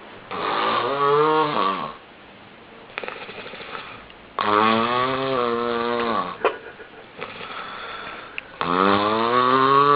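A person snoring loudly: three long, pitched snores about four seconds apart, with quieter breathing between them.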